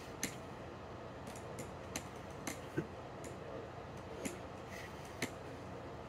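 A doorway pull-up bar clicking against the door frame under the load of slow pull-ups: short, sharp clicks at uneven intervals over a steady room hum.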